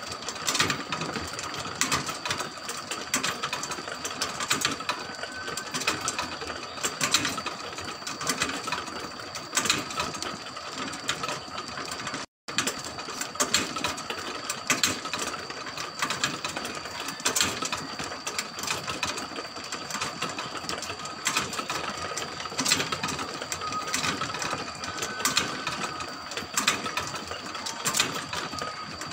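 Motorized rotisserie's sprocket-and-spit drive running, with a steady whine under a constant patter of clicks and rattles from the turning gears. The sound cuts out for an instant about halfway through.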